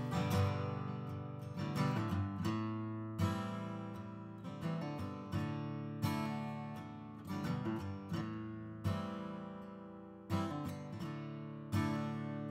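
Background music: an acoustic guitar strumming chords that ring and fade between strums, with no singing.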